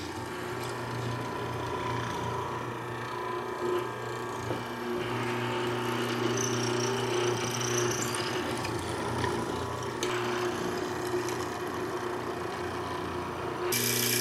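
Delta 14651 benchtop hollow chisel mortiser running, its motor humming steadily while the quarter-inch hollow chisel and auger bit bore square mortises into white oak. The rasping of the cutting swells and eases as the chisel is plunged and withdrawn.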